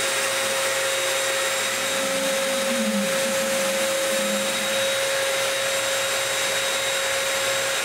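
Spray equipment running steadily while varnish is sprayed: an even motor-and-air noise with a constant whine.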